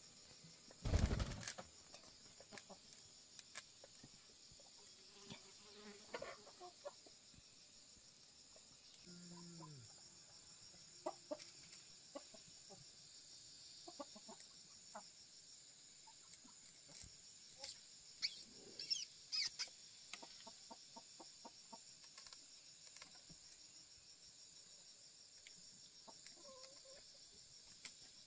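Chickens clucking softly now and then over a steady high insect drone, with scattered clicks and knocks. A single thump about a second in is the loudest sound.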